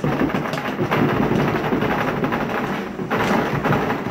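Dense clattering and crinkling of plastic water bottles in a plastic tub as puppies scramble over them, with a brief lull about three seconds in.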